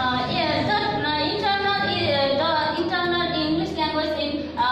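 A woman's high-pitched voice in drawn-out, melodic phrases, its pitch gliding up and down, closer to singing than to ordinary talk.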